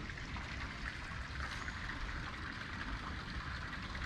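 Steady, even rushing background noise with a low rumble beneath it and no distinct events.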